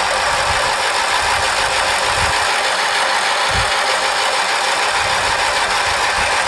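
Electric starter cranking the Briggs & Stratton 19.5 hp opposed-twin engine of a Craftsman LT1000 lawn tractor, a steady loud churn with the engine turning over but not catching. The cranking is pulling fuel through the pulse fuel pump and filter to the carburetor after the tractor sat all winter.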